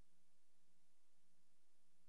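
Near silence: a soundless film track with only faint steady hiss and a low hum.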